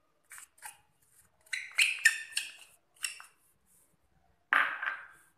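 A spoon clinking and scraping against bowls while cornflour is scooped and tipped in, in a string of short sharp strokes with a busier run of clinks in the middle and a louder knock about four and a half seconds in.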